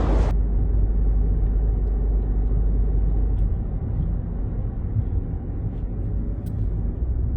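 The tail of an explosion blast, cut off abruptly a fraction of a second in, then a steady low rumble of vehicle and street noise.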